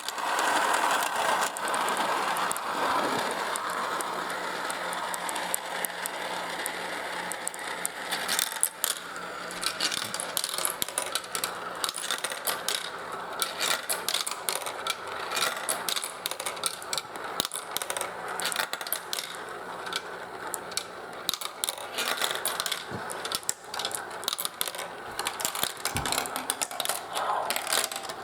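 Marbles rolling and clattering through a plastic marble run, a continuous stream of rapid clicks and rattles as they drop and strike the track pieces, with a smoother rolling sound in the first few seconds.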